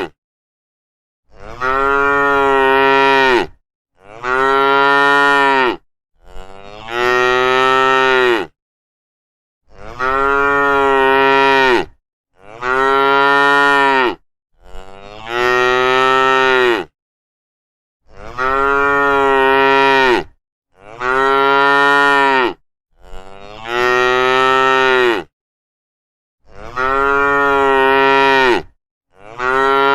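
Cattle mooing over and over: about eleven drawn-out moos of roughly two seconds each. The moos are separated by short gaps of complete silence.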